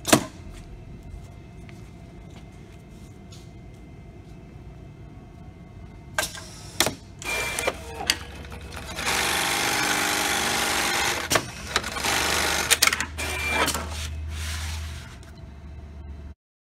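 Programmable industrial pattern sewing machine sewing a label onto fabric. A few sharp clacks and short hisses come as the clamps and slide set, then the machine stitches in two steady runs of a couple of seconds each, with clicks between them. The sound cuts off abruptly near the end.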